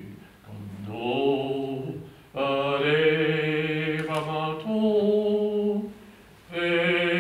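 A man's unaccompanied voice chanting wordless long held notes in a low register, in three phrases with short breaks between, the pitch stepping up partway through the middle phrase.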